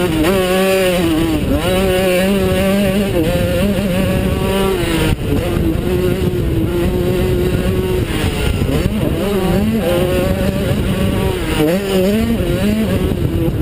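Small youth motocross bike engine revving hard, its pitch rising and falling as the rider works the throttle and gears, with wind noise on the helmet microphone. There is a sharp knock about five seconds in.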